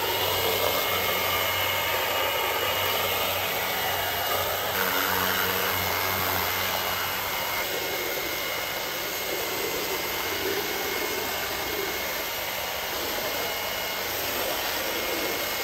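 CRUIFU cordless rechargeable pressure washer running steadily: its battery-powered pump gives a low hum with a thin high whine over the hiss of the water jet spraying vinyl siding.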